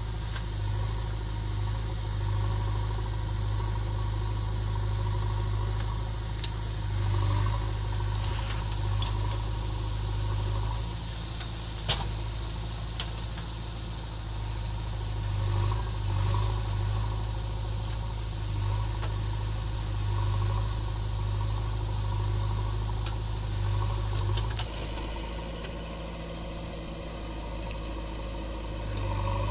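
Heavy diesel engines of a stuck Ashok Leyland tipper lorry and a JCB backhoe loader running together, the engine note swelling and easing every few seconds as the backhoe pushes against the lorry. A single sharp click about twelve seconds in, and the sound turns a little duller and quieter near the end.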